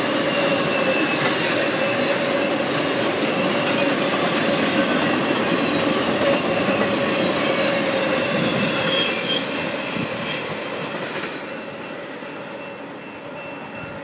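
Freight cars of an intermodal train, loaded with highway trailers, rolling past: a steady rumble of steel wheels on rail with a sustained wheel squeal, and brief high-pitched squeals about four to five seconds in. The sound fades away over the last few seconds as the train recedes.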